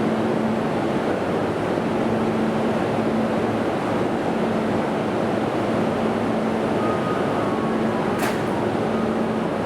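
Toei Shinjuku Line train running at the station platform: a steady rumble with a constant low hum. About eight seconds in there is a sharp click, with faint high squealing tones around it near the end.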